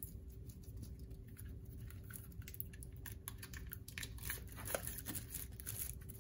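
Faint rustling and light clicks of shrink-wrapped card decks being handled and set into a plastic box insert, with the crinkle of the plastic wrap.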